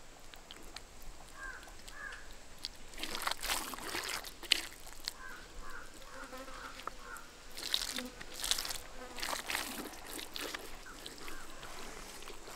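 Hands smearing and patting wet spice paste onto the scored skin of a large whole fish on a banana leaf: soft squelching and rubbing in a few bursts, about three seconds in and again from about eight to ten seconds, with a sharp tap about four and a half seconds in.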